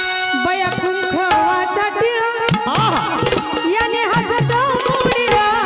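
Live Marathi gavlan folk music: a hand drum plays sliding, pitch-bending bass strokes under a sustained melodic line.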